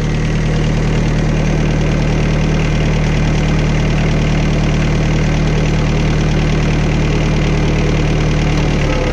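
Compact tractor engine idling steadily, an even low drone.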